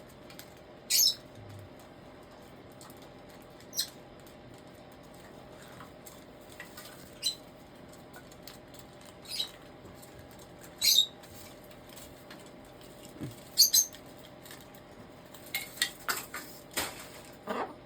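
A pet bird pecking and tugging at a hanging popcorn toy and its hook: short sharp clicks and rattles every few seconds, coming faster in a quick run near the end.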